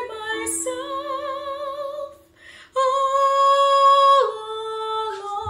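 A woman sings "myself... all" in long held notes with vibrato. She stops for a breath about halfway through. The second, loudest note drops to a lower pitch just after four seconds in.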